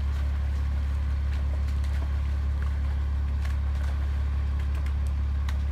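Steady low drone of an idling truck engine, from the fish-stocking tank truck, with a few faint ticks over it.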